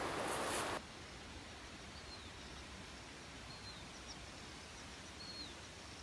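Loud hissing noise that cuts off abruptly under a second in, then faint outdoor background with three short, high, falling bird chirps about a second and a half apart.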